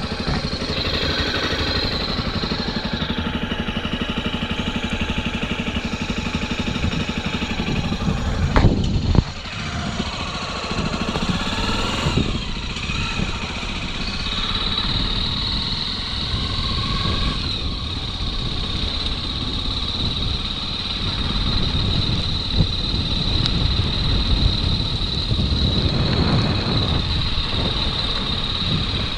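Motorcycle engine running while riding, the revs sweeping up and down a couple of times. There is a brief loud bump about nine seconds in, and a steady high whine comes in about halfway through.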